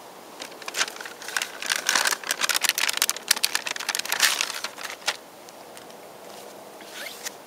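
MRE flameless ration heater's plastic sleeve and the foil retort pouch inside it crinkling and crackling in a quick string of rustles as the heated pouch is pulled out; the crinkling stops about five seconds in.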